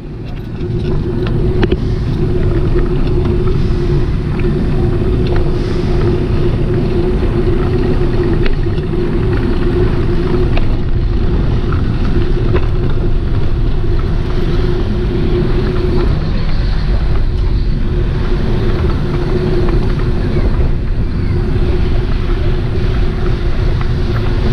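Continuous wind buffeting and road rumble from a camera carried on a moving bicycle, with a steady hum throughout and scattered small rattles and clicks.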